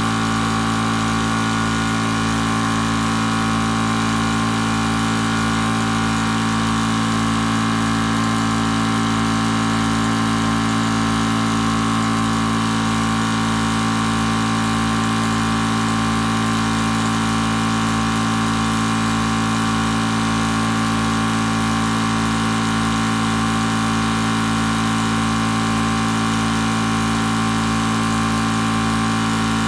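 Small 4000 psi (300 bar) electric high-pressure air compressor running steadily while it fills a scuba tank: a constant, even mechanical drone with a steady hum.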